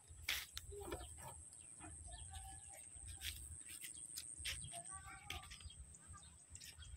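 Chickens clucking now and then, in short calls about two seconds in and again about five seconds in, over a steady high-pitched whine and a low rumble.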